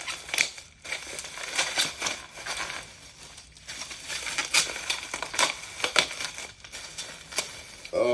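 Packaging being torn open and unwrapped by hand, an irregular run of crinkling and crackling rustles.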